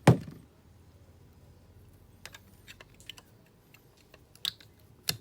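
One loud, dull knock, then a scatter of light clicks and taps as parts are handled on a workbench.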